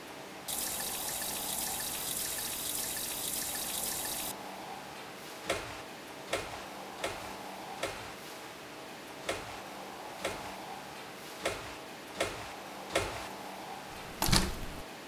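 A kitchen tap running for about four seconds, then footsteps climbing a staircase, one step about every second. Near the end comes a louder knock and rattle as a door is opened.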